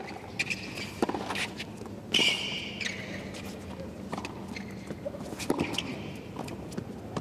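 Tennis rally on a hard court: the ball is struck back and forth by racquets, a sharp hit every second or so, between players' footsteps. A short high squeak, likely a shoe on the court, comes about two seconds in.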